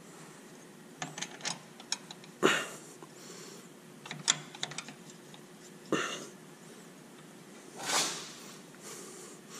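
Scattered light clicks and taps of a bent metal-rod bracket knocking against a metal aircraft frame as it is held up and test-fitted by hand. A softer rushing sound about eight seconds in is the loudest moment.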